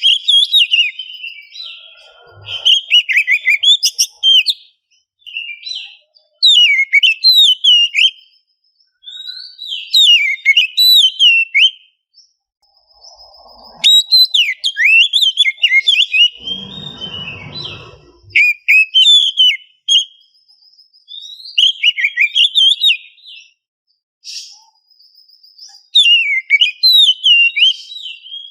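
Oriental magpie-robin (kacer) singing: loud bursts of fast, varied whistled phrases a few seconds long, repeated with short pauses between them. A brief low rustling noise sounds about two-thirds of the way through.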